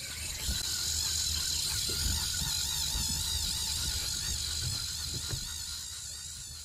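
Outdoor nature ambience with insects chirring, steady and slowly fading down near the end.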